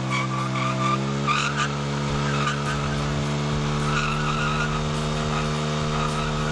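Motorcycle doing a burnout: the engine is held at high revs while the old TVS tyre spins and squeals against the ground, wearing it down before replacement. The revs sag and climb back about a second in, with louder bursts of tyre squeal soon after and again near the middle.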